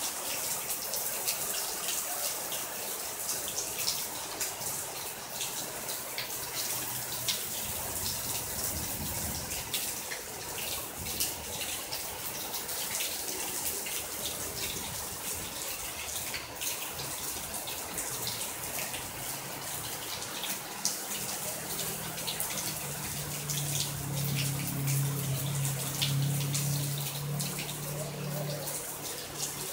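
Heavy rain falling steadily: a dense hiss with many sharp drop hits. A low steady hum comes in about three-quarters of the way through.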